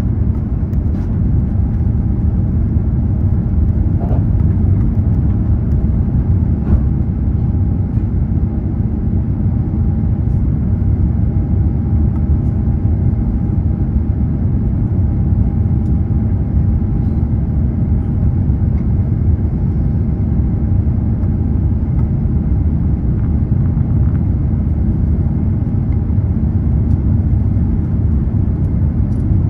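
Airbus A350-900 cabin noise heard from inside the cabin: a steady, loud low rumble of the engines and airflow, with a faint steady hum over it.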